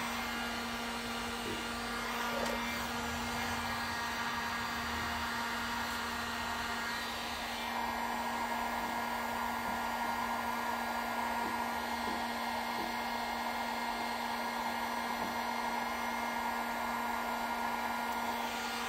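Electric heat gun running steadily, its fan blowing hot air onto the truck's metal and old vinyl decals to soften the adhesive so they can be peeled off. About seven seconds in its tone changes, with a higher hum coming in.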